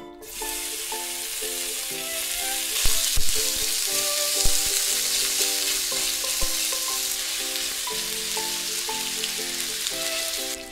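Bacon pieces sizzling in a preheated nonstick frying pan, the sizzle starting as they are tipped in and holding steady. A few soft knocks near the third and fifth seconds.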